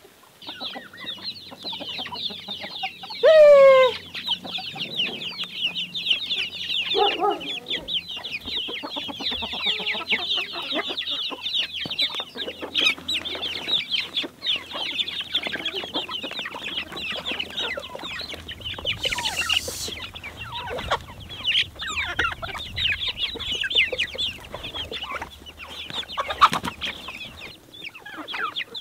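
A large flock of chickens clucking and calling without pause, many birds at once. About three seconds in, one bird gives a loud, drawn-out call that falls in pitch.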